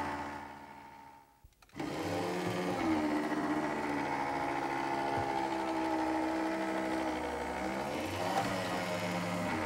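Escalera electric stair-climbing hand truck's half-horsepower permanent-magnet motor and gearbox whining steadily as it climbs stairs, on a battery run down by 131 steps of climbing. The whine fades out about a second in, then starts again and runs steadily, its pitch bending briefly near three and near eight seconds in.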